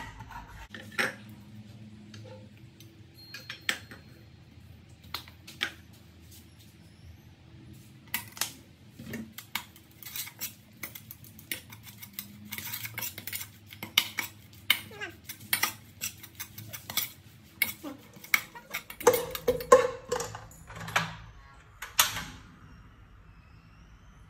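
Metal ladle scraping and clinking against the sides and bottom of a stainless steel pot while stirring a thick spice paste. Irregular scrapes and knocks, sparse at first, getting busier partway through and loudest near the end.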